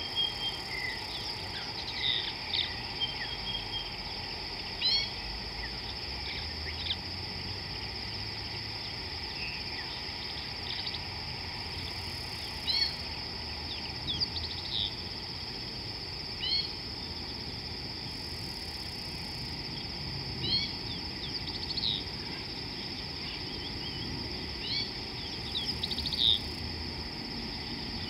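Steady high-pitched drone of insects, with short bird chirps and calls scattered throughout, a few louder ones every few seconds.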